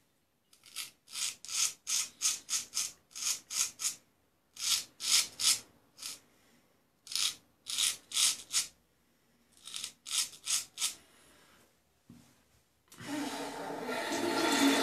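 Luigi Rizzo straight razor with a Böhler steel blade scraping through lathered neck stubble in quick short strokes, about four a second, in runs of several with brief pauses. The blade 'sings' as it cuts, cutting smoothly. Near the end a tap starts running steadily.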